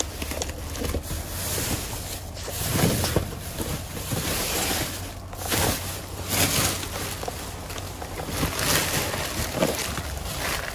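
Plastic bags, bubble wrap and cardboard boxes rustling, crinkling and scraping as they are pushed aside and rummaged through by hand, in irregular louder swells.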